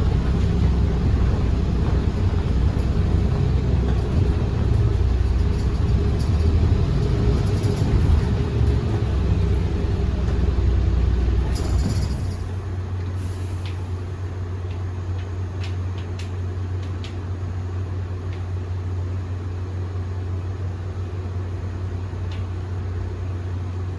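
Iveco Urbanway 18 Hybrid articulated city bus running with a steady low rumble, which drops about halfway through to a quieter, even low hum. A few faint clicks follow the drop.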